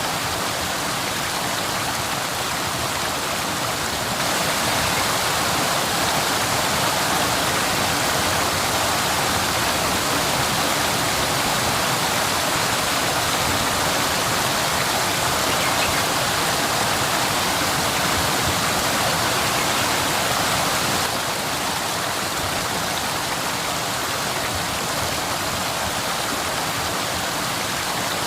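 Waterfall: a steady rush of falling water. It steps a little louder about four seconds in and drops back about seven seconds before the end.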